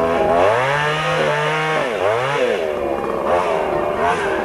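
Chainsaw engine running loudly, its pitch repeatedly rising and falling as the throttle is opened and let off.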